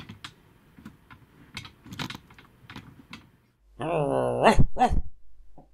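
Light, irregular metallic clicks of an articulated universal wrench's jaws and joints working on a bolt. About three and a half seconds in, a loud dog growl ending in a couple of short barks.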